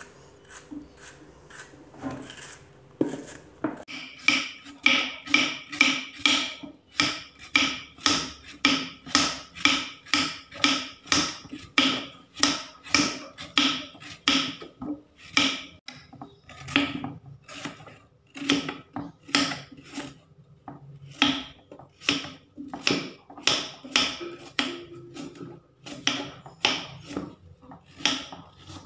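Large knife slicing crisp banana stem heart on a wooden board: a steady run of short cuts, about two a second, starting about three seconds in after a few quieter cuts.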